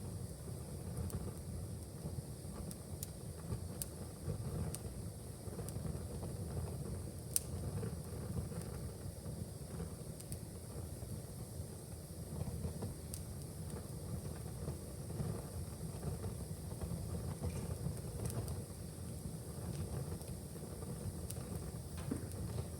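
Fire in a fireplace crackling: a steady low rumble with scattered sharp pops, one louder snap a little past seven seconds in.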